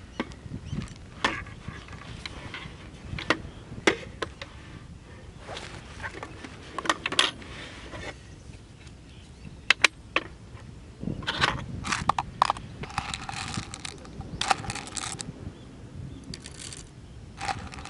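Handling of coffee gear: clicks, clinks and rustles as a stainless hand coffee grinder is slid out of a canvas bag and a glass jar's metal lid is opened, then coffee beans rattling as they are poured into the grinder near the end.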